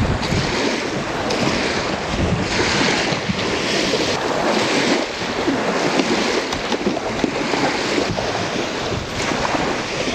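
Small lake waves washing onto a sandy shore, swelling and fading, with wind rushing over the microphone.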